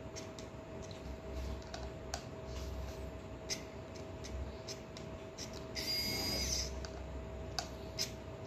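JAKEMY electric precision screwdriver running as it backs screws out of a 2.5-inch hard drive's metal casing, a low motor hum with scattered light clicks of the bit and screws on metal. A short, louder rasping noise comes about six seconds in.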